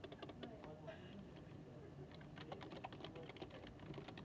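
Quiet library ambience: quick, irregular clicks of typing on a computer keyboard over a low, steady air-conditioning hum.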